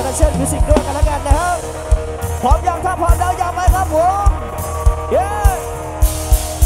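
Live Thai sound-truck band music: a steady kick-drum beat about twice a second under a female vocal melody that slides up and down in pitch.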